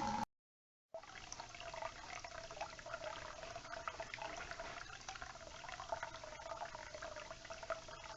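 Water draining slowly from a gas water heater with its supply shut off, running and trickling steadily into standing water. The sound is faint and drops out briefly near the start.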